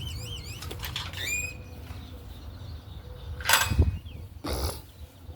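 Outdoor birdsong: rapid warbling, wavering whistled notes for the first second or so, then a rising whistled note. About three and a half seconds in comes a short noisy burst, the loudest sound, and a second one a second later, over a low rumble.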